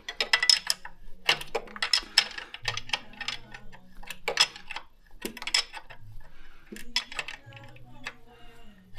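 Ratchet wrench clicking in short bursts of rapid ticks, about six strokes, as a bolt is worked.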